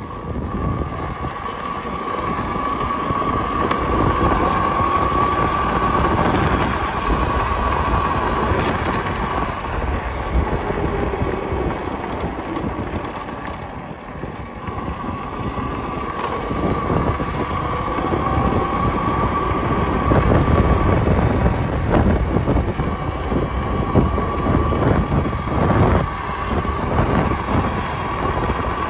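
Talaria electric dirt bike under way: a steady high whine from the electric motor and drive fades out around the middle and comes back, over a low rumble of tyres and wind.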